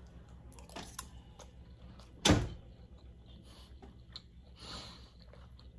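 A door being bumped or knocked on: light knocks, then one loud thump a little over two seconds in.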